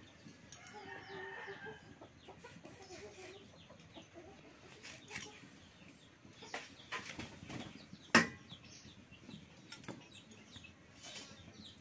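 Chickens clucking in the background, with light clicks and taps from tomatoes being cut on a bonti blade. There is one sharp knock about eight seconds in.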